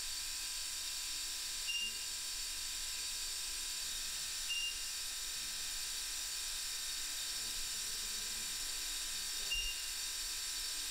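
Steady high hiss, with three short high beeps a few seconds apart and a soft low knock near the end.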